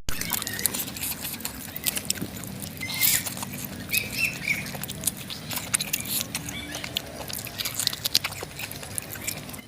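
Irregular crackling and popping of chicken grilling over an open fire. A few short chirps come in about three and four seconds in.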